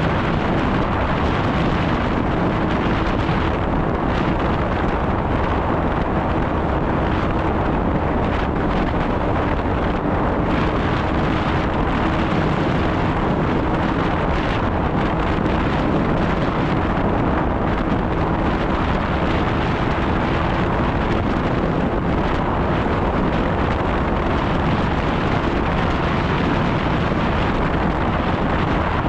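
Snowmobile running at a steady pace: a steady engine hum under loud, even rushing noise, with wind buffeting the microphone.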